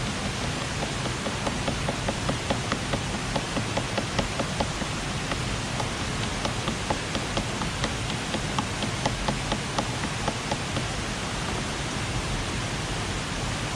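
Steady rush of waterfall water with a run of sharp, irregular taps, two or three a second, as a coin is hammered into wood.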